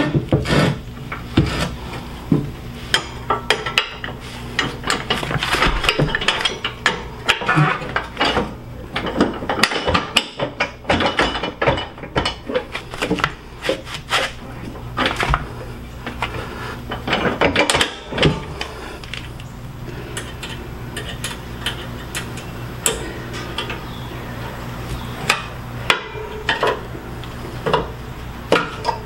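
Irregular metal clinks, taps and knocks as steel deck hanger pins and brackets are handled and worked into place on a zero-turn mower's cutting deck, over a steady low hum.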